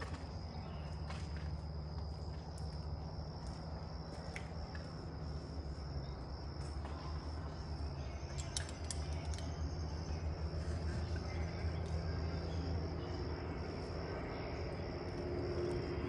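Insects chirring in a steady high drone over a low, steady hum, with a few faint clicks around the middle.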